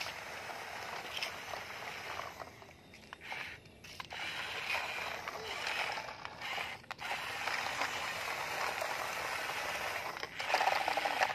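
Remote-control toy dump truck driving on concrete: its small electric motor and plastic gears whirring steadily, cutting out briefly twice.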